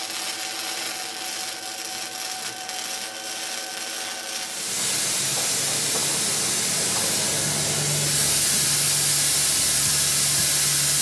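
Welding arc crackling as threads are welded onto a knife's tang, then, from about five seconds in, a gas torch flame hissing steadily as it heats the tang for bending, getting louder about eight seconds in.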